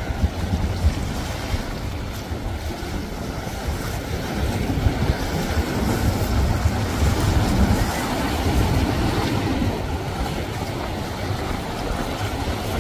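Large motor yacht passing close, its engines running with a steady low rumble under the rush of its bow wave and wake. Wind buffets the microphone throughout.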